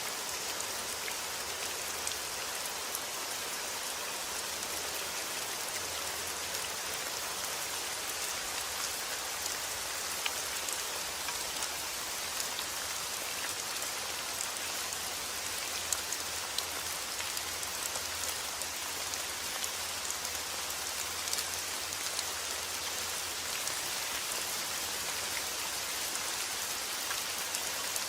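Steady rain falling on a surface, an even hiss with scattered close drops ticking through it and a faint low rumble underneath.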